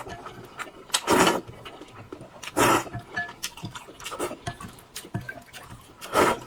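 A person eating noodles close to the microphone: three loud, short slurps, about one, two and a half, and six seconds in, with small chewing and mouth clicks between them.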